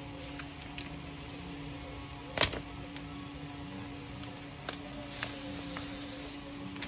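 Handling of a new iPad Air 4's packaging: the translucent protective wrap rustles as it is peeled away, with one sharp tap or click about two and a half seconds in and a few lighter clicks later. A steady low hum sits underneath.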